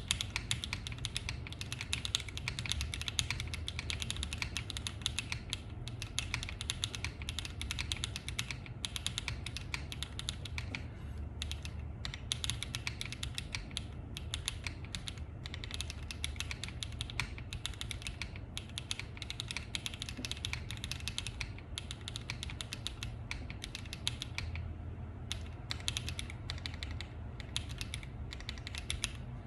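Typing on a Weikav Star80 mechanical keyboard with HMX Xinhai switches and doubleshot PBT keycaps: a rapid, continuous run of keystrokes with a few brief pauses.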